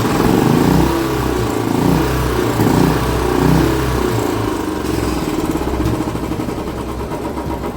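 Royal Enfield Standard's single-cylinder engine idling steadily, just after an oil and oil filter change, as fresh oil works up to the hydraulic tappets to quieten their tick.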